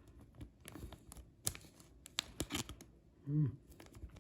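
A trading card being pushed into a tight plastic card sleeve: soft plastic rustling and scraping with scattered light clicks. A brief murmur of voice comes about three seconds in.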